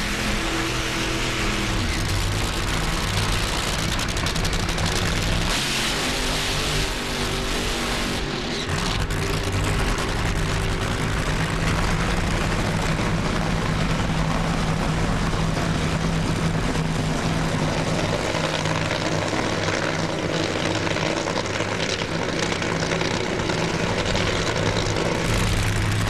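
Nitro-burning supercharged drag-racing engines running loud and steady.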